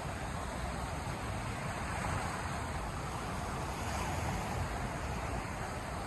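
Black Sea surf: a steady rush of waves that gently swells and eases, mixed with a low rumble of wind on the microphone.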